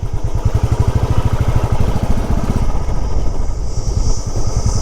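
Motorcycle engine running at a steady low speed, its firing pulses even and regular. A faint steady high-pitched whine comes in near the end.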